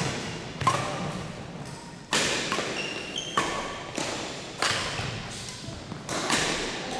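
Badminton rally: rackets smacking a shuttlecock back and forth, about six sharp hits roughly a second or so apart, each echoing in a large gym. Shoes squeak briefly on the hardwood floor around the middle.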